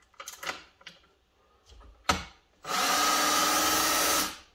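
Cordless drill spinning a case trimmer on a rifle brass case, running steadily for about a second and a half in the second half, after a few small clicks and a sharp click of the case and trimmer being handled.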